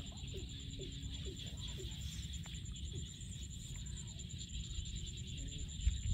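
Hands digging and squeezing through wet mud in shallow water, over a steady low rumble and a steady high hum. There is a low thump just before the end.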